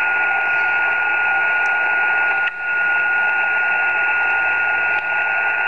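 KX3 transceiver's speaker giving out steady band hiss in sideband receive on 40 metres, with a steady single tone near the middle of the audio passband. There is a brief dropout about halfway through and a faint click near the end.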